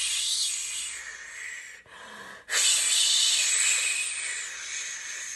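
A woman breathing out in long hissing "shhh" sounds, a choir breathing exercise imitating the spray of stormy waves. The first fades out about a second in; after a brief pause a second, louder "shhh" starts about two and a half seconds in and slowly dies away.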